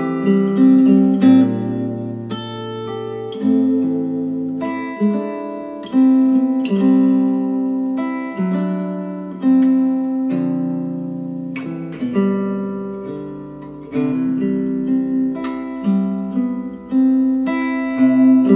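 Acoustic guitar music with plucked and strummed chords, played back through a pair of Wharfedale Diamond 12.2 bookshelf speakers for a listening test.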